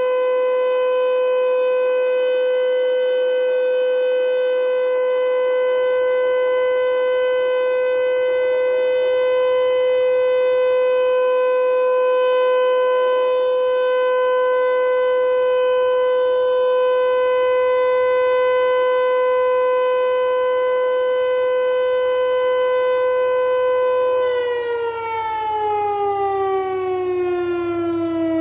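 Federal Signal Eclipse8 electronic outdoor warning siren sounding a loud steady tone. About four seconds before the end it starts winding down, its pitch falling smoothly.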